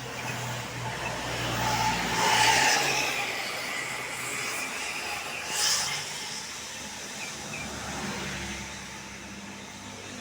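Large buses passing close by on the road: engine and tyre noise that swells as one goes past about two and a half seconds in. A short, sharp hiss follows near six seconds.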